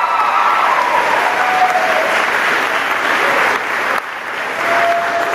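Audience applauding, with a voice or two calling out over the clapping. The clapping dips briefly about four seconds in, then picks up again.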